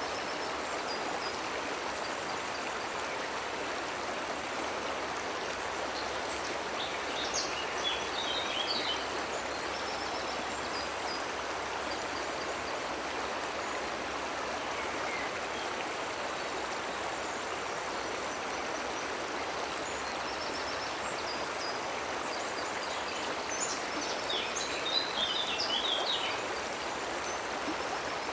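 Steady, even rush of water from a cascading waterfall. A bird chirps briefly about seven seconds in and again near the end.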